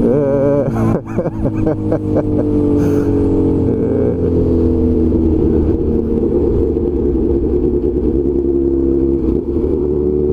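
Motorcycle engine heard from the rider's helmet while riding: the throttle eases off briefly about a second in, then the engine pulls up in pitch and settles into a steady cruising note. A low wind rumble on the microphone runs under it.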